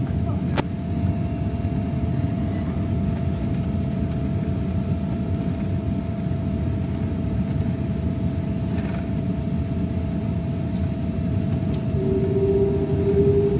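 Cabin noise of an Airbus A350-1000 on its takeoff roll: a steady deep rumble from its Rolls-Royce Trent XWB engines and the wheels on the runway, with a steady whine over it. Near the end a second, brighter tone comes in, rising slightly in pitch.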